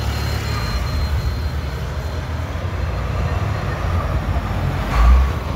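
Street traffic passing on a busy road: a steady low rumble of engines and tyres, with a faint thin whine in the first second or so and a brief louder low thump about five seconds in.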